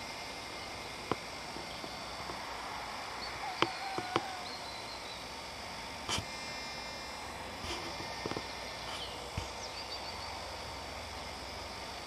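Faint, steady hum of a distant John Deere 6910 tractor working a power harrow and drill, with a few short bird chirps and several sharp clicks.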